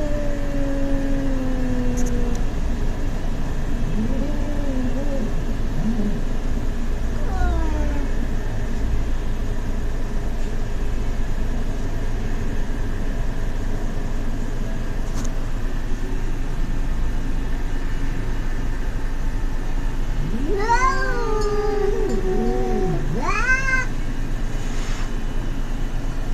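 Cats yowling in a territorial standoff with a stray cat: long, wavering threat calls that rise and fall in pitch. A few calls come in the first several seconds, then a louder run of yowls near the end.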